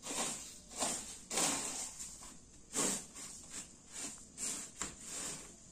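Plastic cup scooping and scraping dry ground corn on a woven bamboo tray: a series of short, gritty rustling swishes at an uneven pace.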